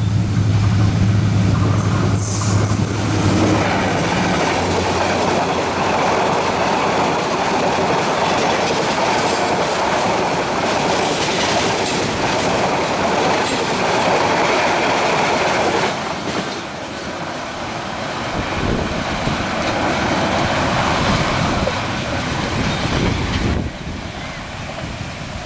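A diesel-hauled passenger train passing close by. The locomotive's low steady engine drone is loudest in the first few seconds, then the coaches run past with clattering wheels and a rushing noise. It gets quieter after about sixteen seconds and again near the end as the train draws away.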